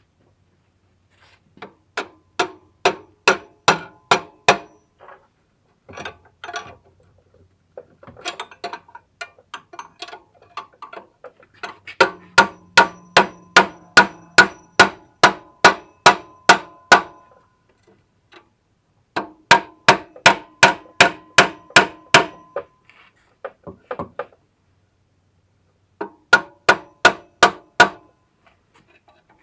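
Hammer striking metal in runs of quick blows, about three a second, with a ringing metallic tone and short pauses between runs. The blows are aimed at freeing a rusted A/C compressor clutch.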